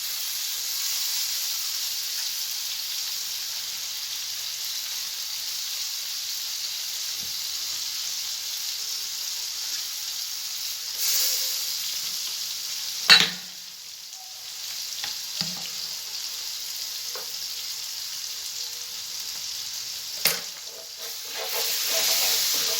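Butter and olive oil with garlic, spices, soy sauce and lemon juice sizzling steadily in a frying pan. There are a few sharp knocks against the pan, the loudest about 13 seconds in and another near 20 seconds.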